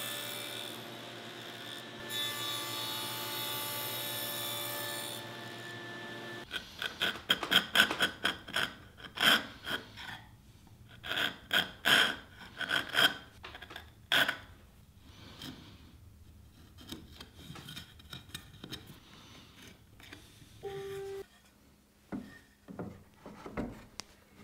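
A table saw with a stacked dado set runs steadily for about the first six seconds while a drawer support's end is pushed over the blade to cut a lip. Then a hand chisel pares the cherry in quick, repeated scraping strokes. Near the end, wooden frame parts knock lightly as they are fitted together.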